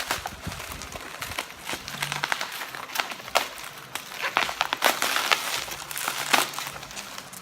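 Bubble wrap crinkling and crackling in irregular bursts as it is handled and unwrapped.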